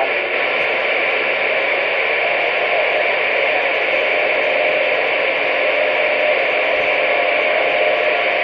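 CB radio receiver hissing with steady static, an open channel with no one talking.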